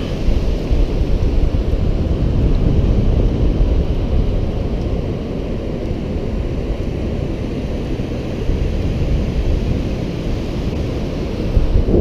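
Wind rumbling on the camera microphone over the steady wash of ocean surf breaking on a sandy beach.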